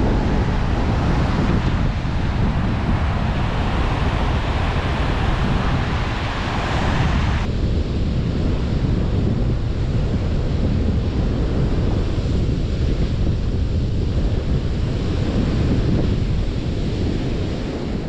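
Ocean surf washing onto a sandy beach, with wind noise on the microphone. The brighter hiss of the surf drops suddenly about seven and a half seconds in.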